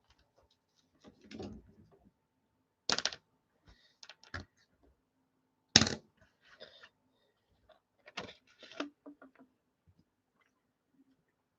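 Scattered light clicks and knocks of things being handled on a desk, with two sharper knocks about three and six seconds in and a quick run of small clicks a little later.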